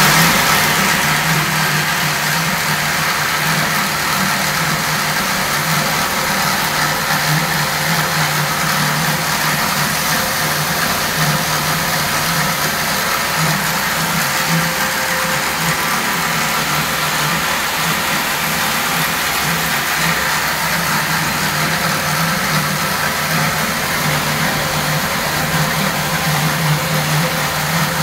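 CNC vertical turning lathe running, its table turning a large steel workpiece while a carbide insert cuts it. The machine makes a loud, steady drone with a constant hiss of cutting over it.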